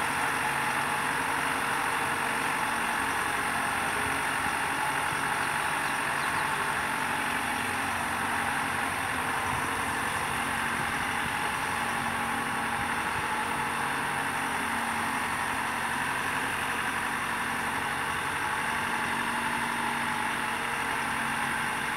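Engine of a mobile boat hoist (travel lift) running steadily as it carries a fishing boat slowly down the slipway to the water.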